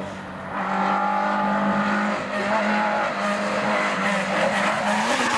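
Peugeot 205 rally car driven flat out, its engine held at high revs as it climbs the road toward the camera. The engine is loudest near the end as the car passes close by.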